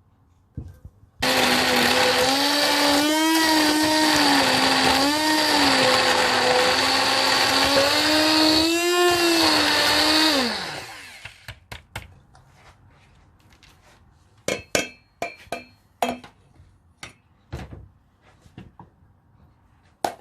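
Electric blender running for about nine seconds, puréeing boiled raisins, ginger and cinnamon in their cooking water until smooth; its motor pitch wavers up and down a few times as the mixture churns, then it winds down. After it stops, a scatter of light clicks and knocks.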